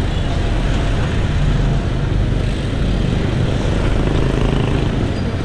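Steady rush of wind and road noise on an action camera mounted on a moving road bike, mixed with the sound of surrounding car traffic.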